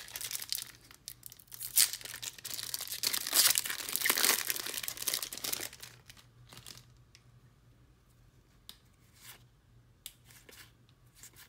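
A trading-card booster pack wrapper being torn open and crinkled, loud and dense for about the first six seconds. After that come only faint flicks and rustles as the cards are handled.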